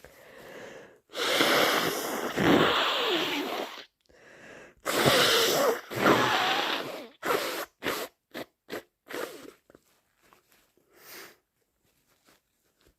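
A person with a congested nose from being sick blowing hard into a tissue: two long, loud, honking blows, followed by a quick run of short, sharp bursts and a few fainter ones.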